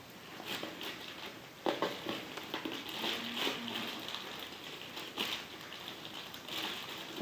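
Packaging being handled and opened: a run of crinkling and rustling with many small clicks and a few sharper snaps.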